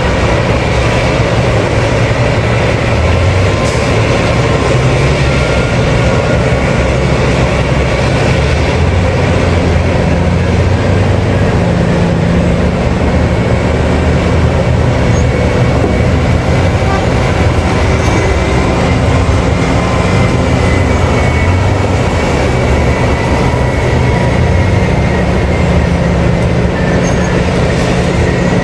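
Heavy diesel mining machinery running steadily: a large hydraulic mining excavator and haul truck at work, a continuous deep engine and hydraulic drone with no pauses.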